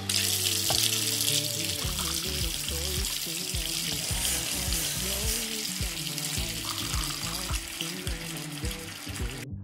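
Tap water running in a steady stream into a stainless steel sink, cutting off suddenly near the end, over background music.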